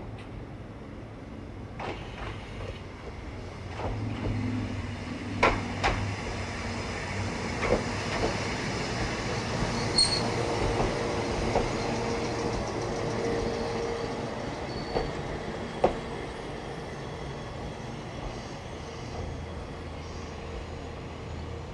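Ex-Tokyu 5000 series "Aogaeru" electric railcar running past and moving away, its wheels knocking over rail joints about a dozen times and a steady whine sounding for a few seconds in the middle, the sound growing from about four seconds in and fading after about sixteen seconds.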